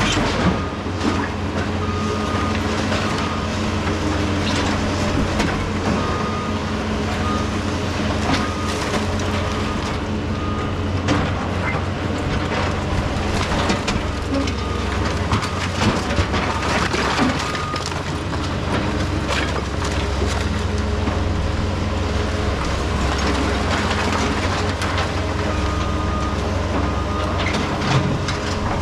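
Diesel heavy equipment running steadily while broken concrete clanks, scrapes and crunches, with a backup alarm beeping at times.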